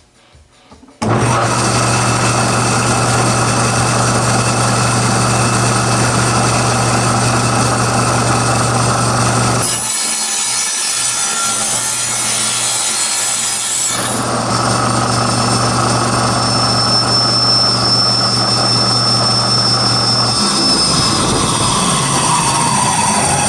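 Table saw with a 10-inch aluminum-cutting blade running, starting abruptly about a second in. Around ten seconds in, the low hum gives way to a harsher, high-pitched stretch for about four seconds as the blade cuts through aluminum door extrusion. Near the end the pitch falls as the saw winds down.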